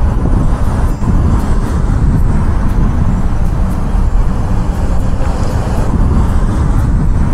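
Road traffic on a busy roundabout: a loud, steady rumble of cars and lorries going by.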